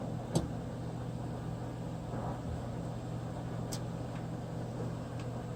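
Steady low electrical hum with a faint hiss, broken by one short click about half a second in and a few faint ticks later.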